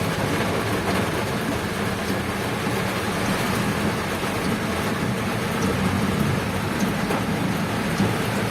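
Steady drone of a vehicle travelling on a wet road, with the hiss of rain mixed in.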